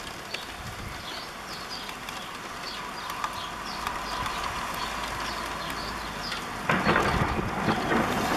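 Small birds chirping in short repeated calls over a rushing noise that slowly builds, then swells suddenly into a loud rush near the end.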